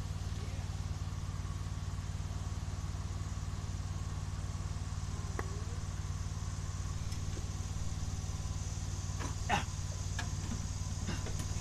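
Steady low hum of an engine running nearby, with a few light clicks and one louder metallic knock about nine and a half seconds in as hands work around the spark plugs and manifold.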